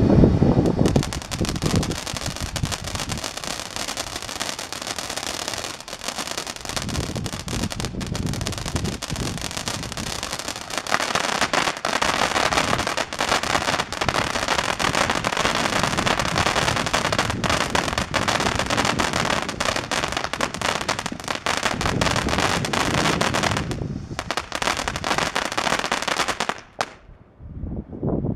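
Brothers Pyrotechnics Humdinger fountain firework burning: a steady hiss of spraying sparks laced with dense crackling. It gets louder about eleven seconds in and dies out near the end.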